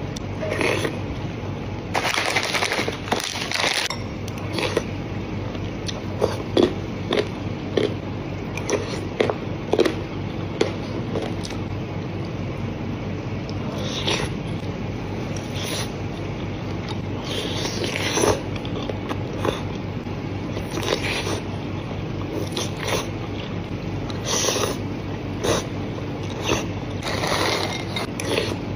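Someone eating bakso meatball soup: a metal spoon clicking and scraping against a ceramic bowl, with chewing and several longer slurps of broth and noodles, over steady background noise.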